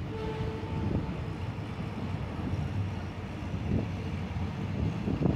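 Passenger train running, heard from a carriage window: a steady rumble of wheels on the track mixed with wind noise, with a few louder knocks in the second half.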